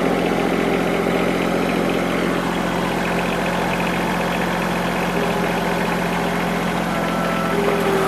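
Tractor engine running steadily while the front loader works, with a thin higher whine coming in near the end.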